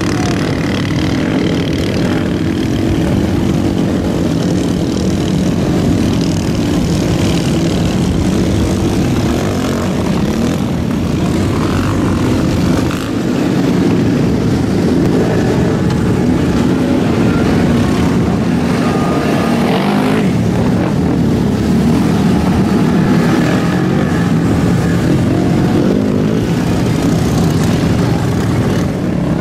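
Engines of ATVs and big lifted mud trucks running loudly and steadily, with a brief dip in loudness a little before halfway.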